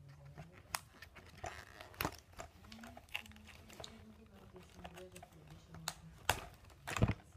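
Small plastic toy pieces and their packaging being handled: scattered light clicks and crinkling, with two louder knocks near the end.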